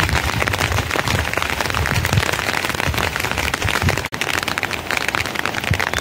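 Heavy rain falling, a loud dense crackle of countless drops hitting a surface; it cuts out for an instant about four seconds in.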